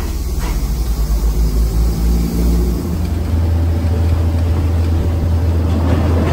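Diesel engine of a local railcar train running with a loud, deep, steady drone. Its pitch steps up about three seconds in as the train picks up speed.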